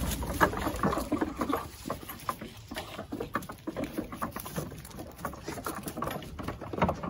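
Nigerian Dwarf goat kids' hooves clattering on a wooden platform and bench as they jump on and off and scramble over it: a patter of many irregular taps and knocks.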